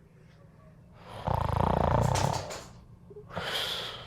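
Sleeping cat snoring: a loud, rattling snore about a second in, lasting over a second, then a softer breath with a thin whistle near the end.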